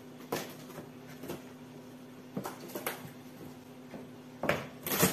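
Opening a cardboard appliance box in a clear plastic bag: scissors snipping, plastic crinkling and cardboard rustling as scattered short clicks and crackles, with two louder rustles near the end. A faint steady hum runs underneath.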